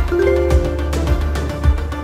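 Background music with a steady beat, just under two beats a second, under held melodic tones.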